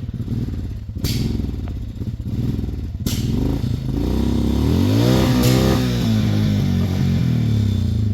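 Suzuki Vinson 500 ATV's single-cylinder engine running and being revved, its pitch rising and falling in the middle, with a couple of sharp knocks early on.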